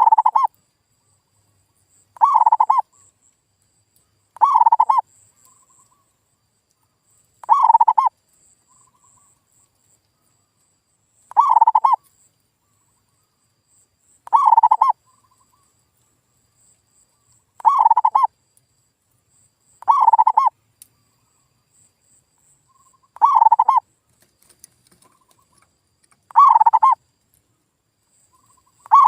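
Male zebra dove (perkutut) cooing: a short, pitched coo phrase repeated about every two to three seconds, ten times in a row, with silence between phrases.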